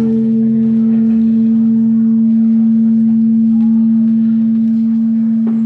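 Dance accompaniment music holding one long, low, gong-like ringing note at a steady level.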